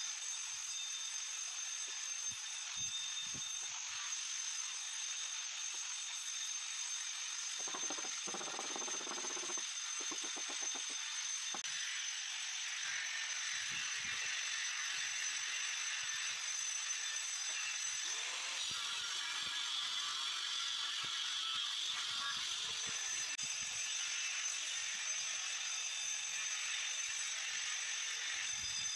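Intermittent scraping and tapping of a mason's trowel working cement mortar onto granite strips, with tools clattering, over a steady hiss.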